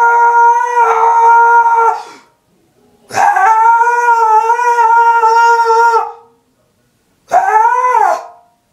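A man's high, strained scream, held long at one pitch, as a Super Saiyan power-up yell. It breaks off about two seconds in, comes again for about three seconds, then ends with a short yell that rises and falls.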